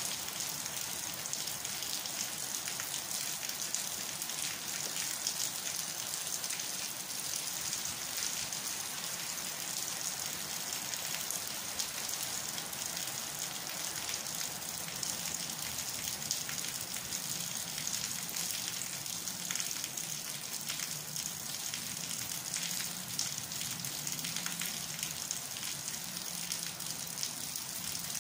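Steady rain falling: an even hiss full of small drop ticks, with no let-up.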